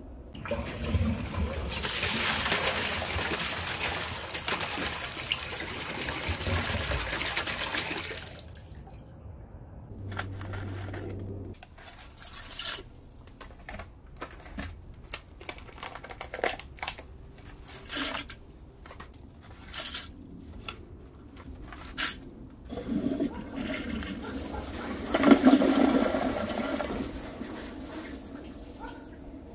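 Toilet flushing: water rushing through the bowl for several seconds. Then comes a run of sharp separate clicks and knocks, and a second flush rushes near the end.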